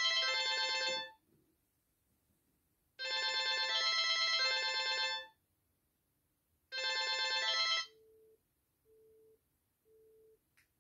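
Snom portable phone on a nurse call system ringing with a melodic ringtone in bursts of about two seconds. About eight seconds in the ring is cut short, and three short low beeps follow about a second apart as the call ends on the handset after the nurse call is canceled.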